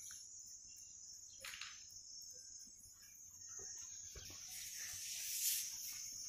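Faint, steady high chirring of crickets, with soft handling sounds of hands kneading dough.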